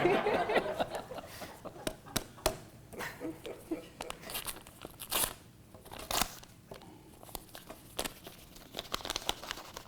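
Paper envelope being torn open and rustled, with scattered sharp tearing and crinkling sounds.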